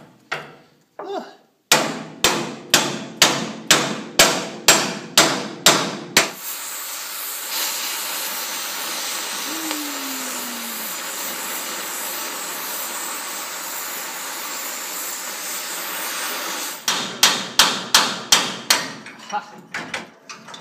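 Ball-peen hammer blows on steel, about two a second, as a seized timing collar on a swather auger shaft is driven at. The blows give way to the steady hiss of an oxy-acetylene cutting torch for about ten seconds as the rusted-on collar is cut off. Then comes another quick run of hammer blows.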